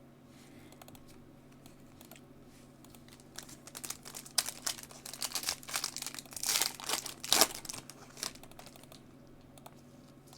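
Crinkling, tearing and clicking of a foil trading-card pack wrapper being torn open, with the cards inside handled. It starts about three seconds in and fades out near the end.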